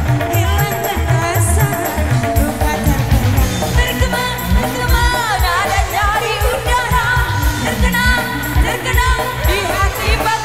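Live dangdut band music over a stage PA system: a busy, fast drum beat with keyboard, and female singers carrying a melody line that comes through more clearly from about four seconds in.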